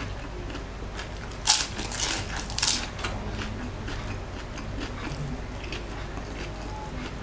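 A person biting into and chewing crispy fried lumpia shanghai (Filipino spring rolls), close to the microphone. A cluster of loud, sharp crunches comes about a second and a half in, followed by softer chewing.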